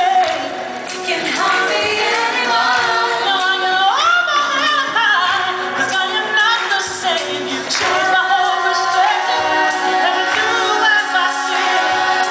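Live contemporary Christian song sung by a mixed vocal group of men and women into microphones, with instrumental accompaniment and a steady beat.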